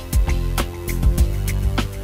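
Music with a steady, punchy drum beat over sustained bass notes.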